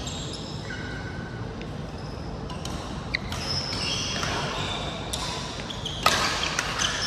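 Badminton play on an indoor court: sneakers squeaking on the court floor in short high chirps, and a series of sharp racket-on-shuttlecock hits, the loudest about six seconds in.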